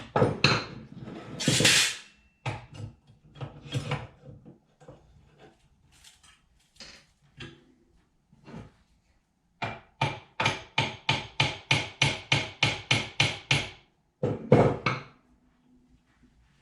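Sheet steel being worked by hand: scattered clanks and knocks, then a quick, even run of about sixteen ringing hammer blows on the metal, roughly four a second, and two last heavier knocks.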